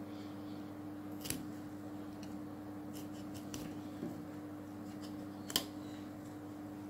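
Knife cutting broccoli florets off the head on a plastic cutting board: a handful of sharp, crisp cuts through the stems, the loudest about five and a half seconds in, over a steady low hum.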